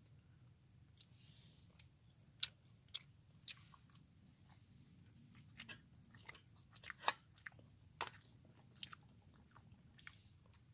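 A person chewing a mouthful of fried instant noodles close to the microphone, with irregular sharp clicks, the loudest about two and a half and seven seconds in.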